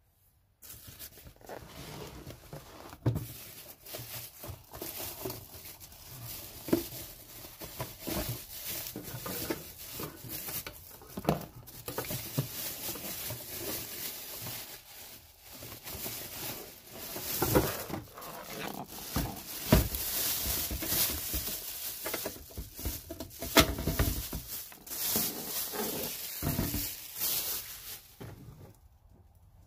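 Plastic packaging crinkling and a cardboard box rustling as a battery charger and its clamp leads are unpacked by hand, with scattered sharp knocks and clicks of the clamps and the charger being handled.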